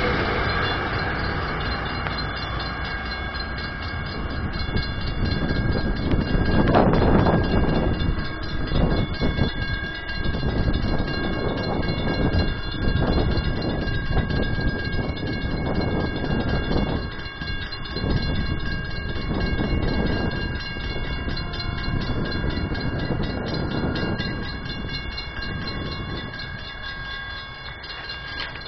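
Metrolink commuter train of bilevel coaches rolling past at track level, its wheels rumbling and clattering on the rails, then slowly fading as it pulls away.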